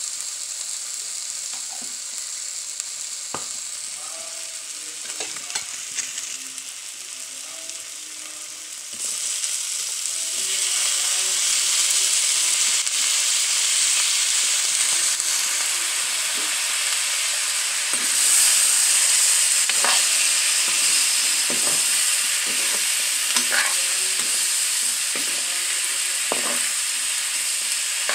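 Frying sizzle in a black iron wok (kadai): a lighter sizzle of onion-masala paste, then about nine seconds in a much louder, steady hiss as pork pieces go into the hot oil. A spatula scrapes and knocks against the pan now and then.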